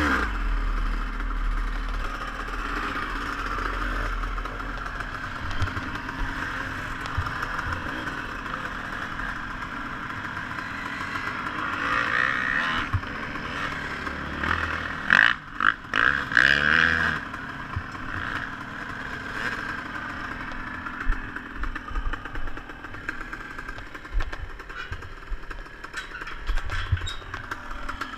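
Dirt bike engine idling steadily, growing louder and rougher for a few seconds about halfway through.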